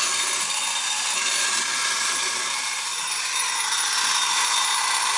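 Clockwork motor of a vintage Japanese wind-up sparking robot running as it walks: a steady rasping whirr of metal gears, with the flint wheel scraping against the flint to throw sparks.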